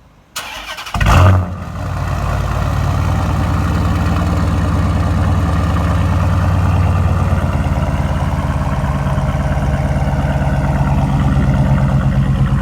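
Dodge Challenger R/T's 5.7-litre Hemi V8 starting: a short crank, a loud flare about a second in, then settling into a steady idle.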